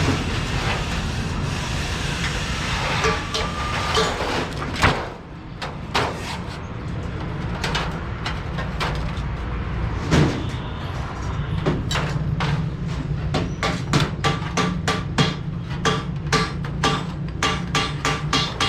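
Hammer blows on sheet metal, scattered at first, then a steady run of about three strikes a second, each with a short metallic ring.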